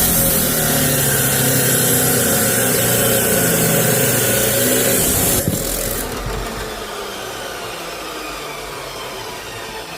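Power tool cutting through the steel of an old chainsaw bar: a loud, steady, hissing grind that stops about five and a half seconds in, after which the tool runs on more quietly with its pitch falling as it winds down.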